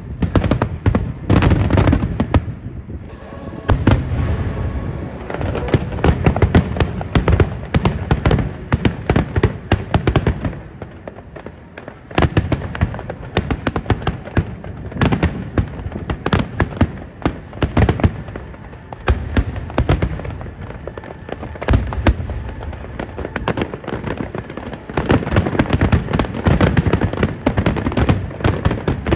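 Fireworks display: a dense, continuous barrage of sharp bangs, crackles and deep booms. It thins out for a moment a little before the middle, then builds back to a thick barrage near the end.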